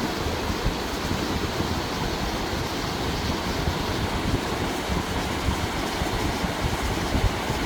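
Mountain stream rushing steadily over rocks, a dense even rush with a deep rumbling low end.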